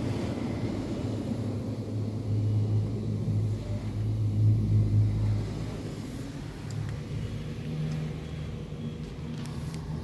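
Touch-free automatic car wash machinery running, heard from inside the car's cabin as a low hum. It swells from about two to five seconds in, then settles to a quieter, slightly higher hum.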